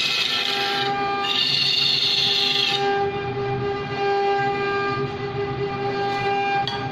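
Large wood lathe spinning a log while a wide scraper cuts into it: a steady humming tone, with a high screech in two stretches during the first three seconds while the tool bites and shavings fly.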